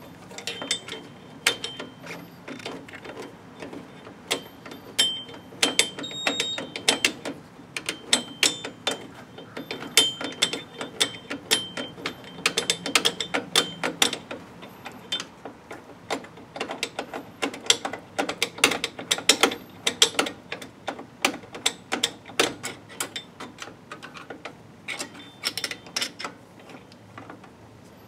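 Star-wheel adjuster of a 2001 Toyota Corolla rear drum brake being turned with a screwdriver, its teeth clicking in quick irregular runs with short pauses. The self-adjuster is being backed off to retract the brake shoes.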